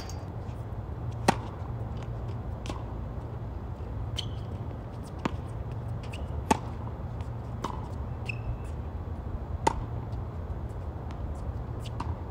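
Tennis rally on an outdoor hard court: sharp pops of the ball coming off the rackets and bouncing on the court, spaced a second or more apart, loudest about a second in, around six and a half seconds and near ten seconds, over a steady low hum.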